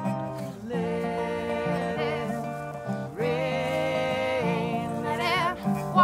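Acoustic folk music: strummed acoustic guitars under long held melody notes that waver in pitch.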